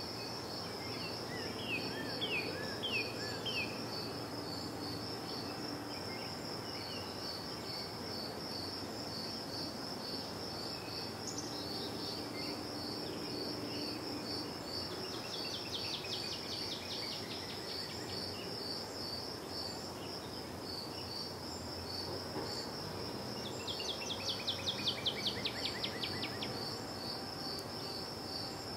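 Cricket chirping in a steady, even, high-pitched pulse throughout. A bird gives a few short falling chirps early on and two rapid trills of quick notes, in the middle and near the end. A low steady background rumble sits underneath.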